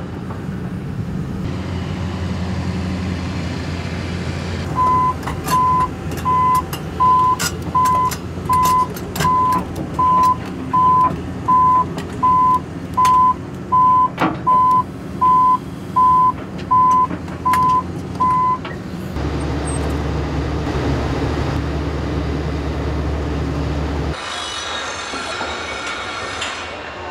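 Heavy construction machine's engine running, with its backup alarm beeping in an even rhythm, a little more than one beep a second, from about five seconds in until around eighteen seconds. The engine sound changes about nineteen seconds in, and a hissing noise comes in near the end.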